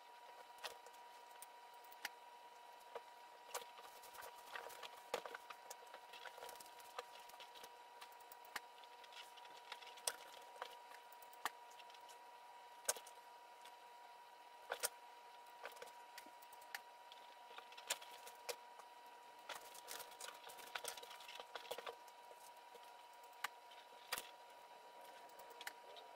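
Faint, irregular clicks and light taps of hand work at a craft table as pom-poms are hot-glued and pressed onto a pillow cover, over a steady faint high hum.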